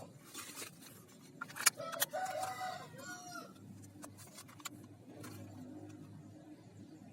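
A rooster crowing once about two seconds in, a held call that drops away at the end, with a few sharp clicks around it.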